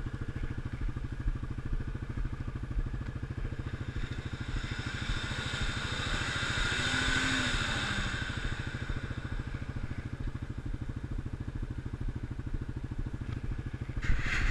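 ATV engine idling steadily close by, with an even low pulse. Midway, a rushing noise swells for a few seconds and fades, and a few knocks come near the end.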